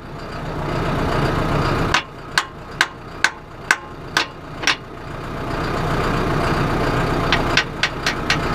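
Tractor engine running; its sound drops suddenly about two seconds in, then builds back up again. Over it come sharp clicks or taps, about two a second for a few seconds, and a few more near the end.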